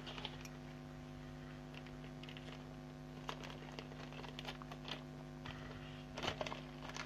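Faint rustling and light clicks of plastic packaging and figure parts being handled, with a small flurry about six seconds in, over a steady low hum.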